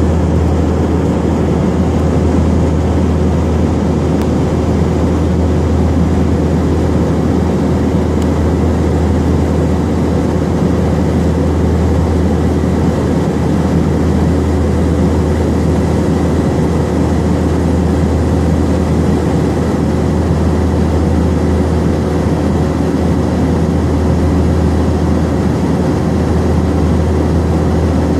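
Steady drone of an aircraft cabin in cruise flight at about 30,000 feet: engine and airflow noise with a strong low hum and a few faint steady tones above it, unchanging throughout.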